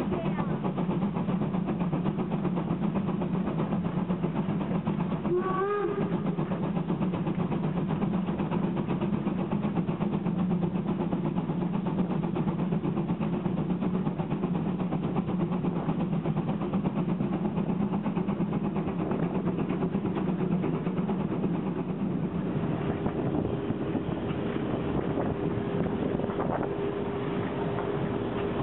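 Narrow-gauge steam train running, heard from a carriage window: a steady rumble of the wheels and train. About six seconds in a short rising whistle sounds, and a steady high tone comes in near the end.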